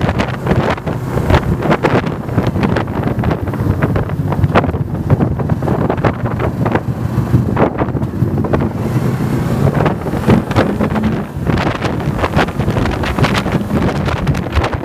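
Wind buffeting the microphone of a Yamaha motorcycle being ridden on the road, with the bike's engine running underneath. The bike slows down to a crawl about halfway through, then accelerates again.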